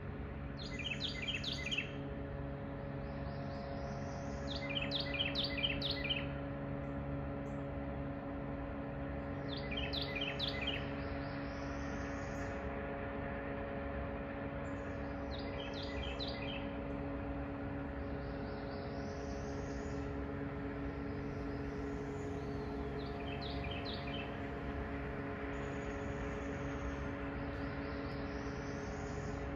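A songbird sings a short song over and over, a quick run of high notes and then a rising buzzy note, about every five seconds. Under it runs the steady low drone of a river towboat's diesel engines pushing coal barges.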